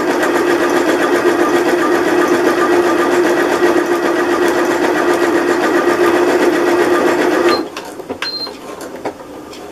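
Janome electric sewing machine stitching steadily at raised speed, then stopping suddenly about three-quarters of the way in. A few faint clicks and a short high beep follow as the machine makes its automatic tie-off, the needle dropping several times in the same spot.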